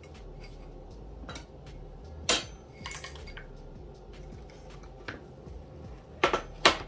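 Kitchen utensils knocking against a saucepan and containers. There is one sharp clink about two seconds in, a few lighter clicks a moment later, and two loud knocks near the end as a ladle goes into the pot of hot chocolate.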